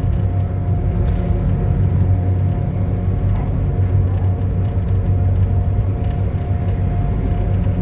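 Mitsubishi Crystal Mover C810 rubber-tyred light-rail train running between stations: a steady low rumble with steady humming tones.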